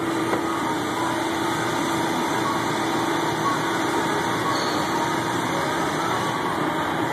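Carpet extractor's vacuum motor running steadily, a constant whir with a low hum.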